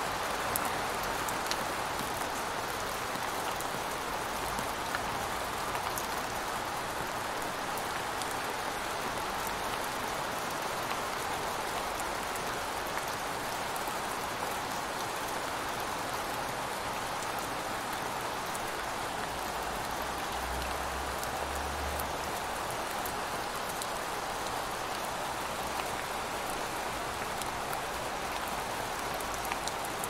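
Steady rain falling: an even, unbroken hiss with faint scattered drop ticks.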